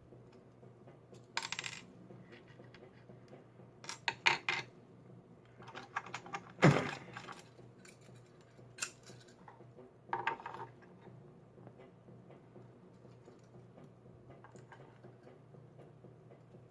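Small metal lock parts, the pins and springs of a padlock being taken apart, clinking and rattling against a pinning tray and the lock body in several short bursts. The loudest burst comes about seven seconds in.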